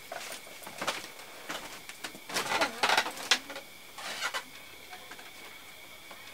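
Shuffling footsteps and rustling of a person getting up and walking away across a woven bamboo floor, with a cluster of scrapes and creaks about two and a half to three and a half seconds in.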